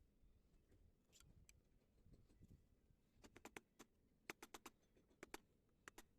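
Near silence broken by a run of faint short clicks and taps, about a dozen of them, in the second half.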